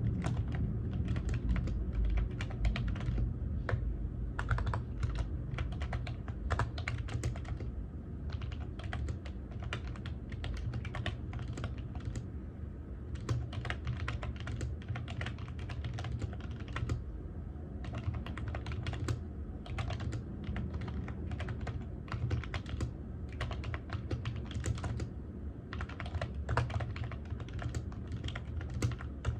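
Typing on a computer keyboard: quick, irregular key clicks in runs, with short pauses between bursts.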